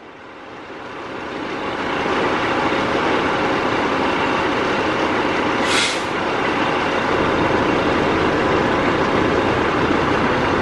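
Fire truck's diesel engine running steadily, building up over the first two seconds, with a short hiss of air-brake air released about six seconds in.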